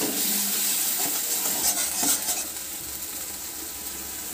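Ginger-garlic paste sizzling in hot oil and ghee in a kadai, just loosened with a little water so it doesn't burn. A spatula scrapes and stirs through it a few times in the first couple of seconds, then the sizzle settles down, quieter and steady.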